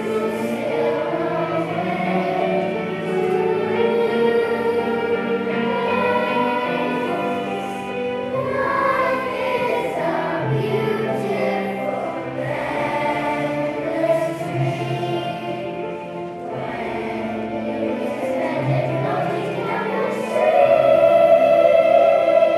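Children's choir singing a song together, with steady low accompanying notes beneath the voices; it gets louder near the end.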